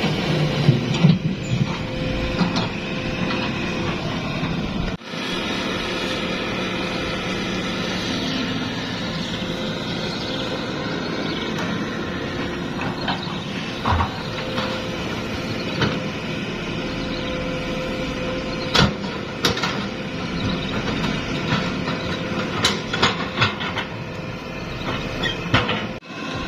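Hitachi hydraulic excavator's diesel engine running steadily at work, with occasional sharp metallic clanks.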